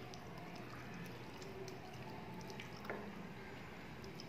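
Fingers mixing wet rice and curry on a plate and chewing: soft wet squishes and a few small clicks, faint, over a low steady hum.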